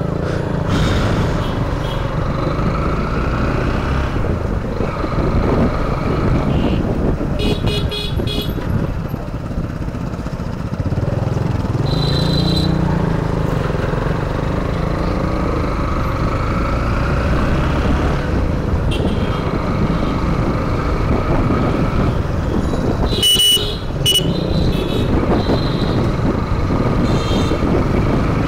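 Honda X-Blade 160 motorcycle's single-cylinder engine running steadily under way in city traffic, with road and wind noise. Several short horn honks cut through it, the loudest about two-thirds of the way in.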